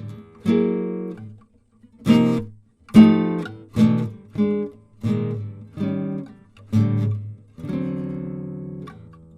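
1969 Rokutaro Nakade A3 classical guitar, spruce top and rosewood back, played with a pick: about ten chords struck one after another, the last left ringing for about a second and a half.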